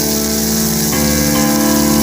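Background music with sustained chords that change about a second in, over a steady hiss of food sizzling in oil.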